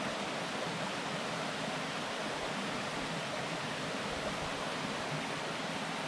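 Shallow mountain stream babbling over a sand and gravel bed, a steady, even rush of running water.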